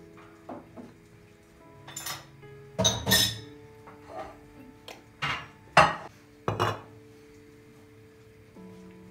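Dishes and cutlery knocking and clinking in a series of separate sharp clatters, the loudest about three and six seconds in, over soft background music with long held notes.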